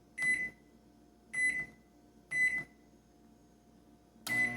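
Microwave oven keypad beeping as the cooking time is set: four short, high beeps. With the last beep near the end, the oven starts running with a steady low hum.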